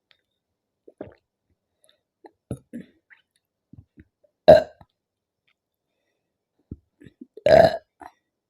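A woman burping loudly twice, about three seconds apart, the second burp a little longer, from the gas of gulped carbonated cola (Thums Up). Small, quiet sounds come between the burps.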